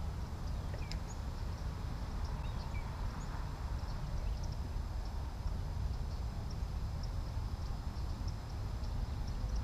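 Wind buffeting the microphone in a steady low rumble, with faint short bird chirps scattered through it.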